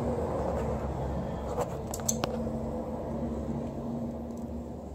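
A few light metallic clicks, about two seconds in, as a steel nut is worked by hand onto a stud at the back of an aluminium oil pan, over a steady low hum.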